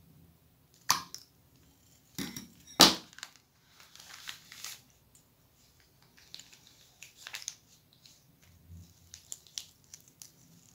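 Scissors snipping through a plastic piping bag, three sharp cuts in the first three seconds, the last the loudest. Then the thin plastic crinkles as it is handled.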